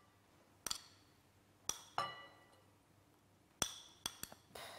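A metal spoon clinking against a small plate and a glass bowl while ingredients are spooned in: about six sharp clinks, each with a brief ring, and a short scrape near the end.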